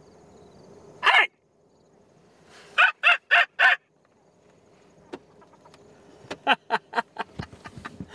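Sharp-tailed grouse clucking: one call about a second in, a quick run of four about three seconds in, then a string of shorter, quicker clucks toward the end.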